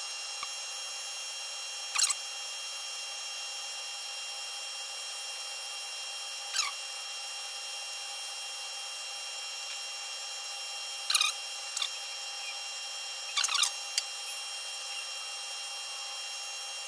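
Lathe turning at about 200 RPM while a sine-plate roll is hand-lapped with garnet-based abrasive in a custom lap: a steady whine and hiss, with a few short squeaks now and then.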